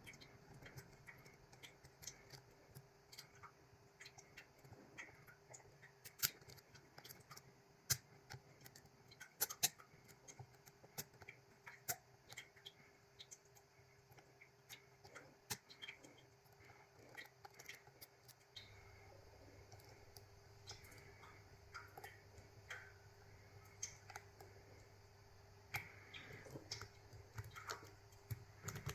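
Faint, irregular metallic clicks and ticks of a lock pick and tension tool working the pins of a GOAL D9, a Japanese nine-pin lock with pins in three rows, as it is being picked. A faint steady hum sits underneath and gets louder about two-thirds of the way through.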